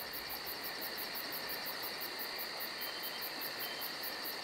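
Night insect ambience: crickets chirping in a fast, even pulse over a constant high insect trill.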